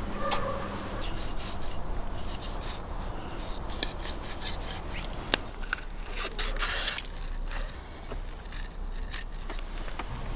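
Kitchen knife cutting and scraping along raw sturgeon on a wooden cutting board, a run of irregular rasping strokes as the blade works through the flesh, with two sharp clicks about four and five and a half seconds in.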